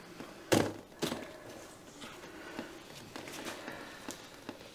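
A hand-spun cake-decorating turntable carrying a paint-covered canvas: a sharp knock about half a second in and a smaller one at about a second, then faint irregular clicks and rattles as it keeps turning.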